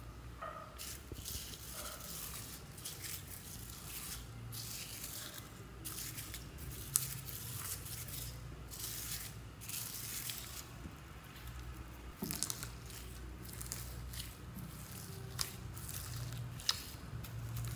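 Hands pressing and kneading foam beads into slime: irregular crunching and crackling of the foam balls with a wet squish, beginning about a second in, with a few sharper clicks.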